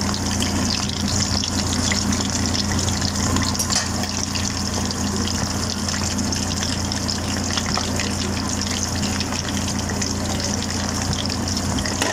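Tempura-battered shrimp deep-frying in hot oil: a steady sizzle full of fine crackles from the bubbling oil, over a steady low hum.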